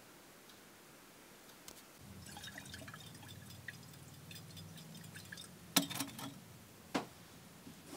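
Liquid swishing inside a lidded glass jar as it is swirled by hand, with small clinks of glass. Then two sharp knocks, about six seconds in and a second later, as the jar is set down on a ledge; the first knock is the loudest.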